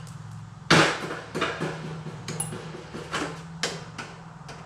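A series of sharp metallic clinks and knocks, the loudest about a second in, from the small screws and sheet-metal parts of a dryer's heating element housing being handled, over a steady low hum.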